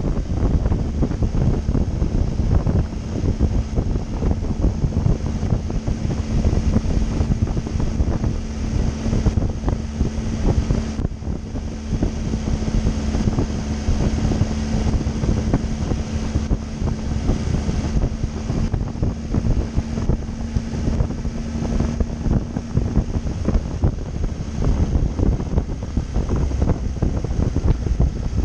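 Heavy wind buffeting on the microphone of a moving motorcycle, with the steady hum of the Triumph Tiger 800's three-cylinder engine at a constant speed. The engine note drops away after about twenty seconds.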